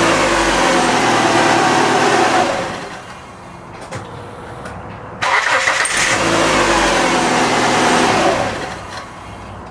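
Starter cranking a 2002 Dodge Neon's four-cylinder engine, in two stretches of about three seconds each, the second starting about five seconds in. The battery is weak, which the owner calls dying.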